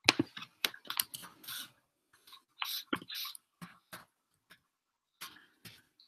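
A run of irregular clicks, taps and short rustles close to the microphone, the sharpest just at the start, with brief gaps between them.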